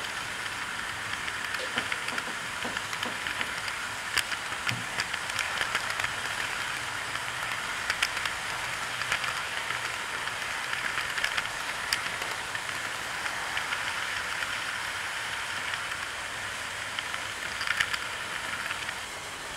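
OO gauge model train running on track: a steady whirring rumble with irregular clicks as the wheels cross rail joints.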